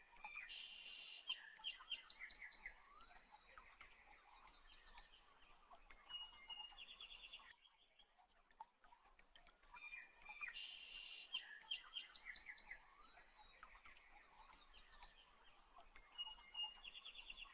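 Faint birdsong: short chirps and quick trills. The same stretch of calls seems to come round again after about ten seconds, like a looped recording.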